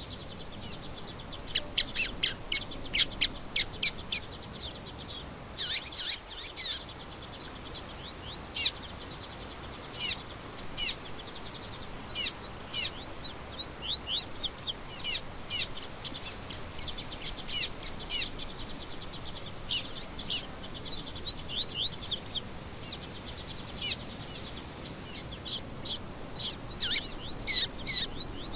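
Songbirds chirping and singing: many short, high, quick down-slurred notes in fast runs and clusters, over a faint steady background hiss.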